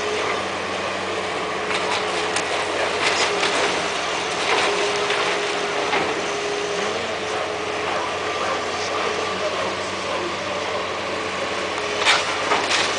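High-reach demolition excavator working, its diesel engine running with a steady hum, while brick and rubble clatter and crash down as the arm pulls at the masonry wall. The loudest crash comes near the end.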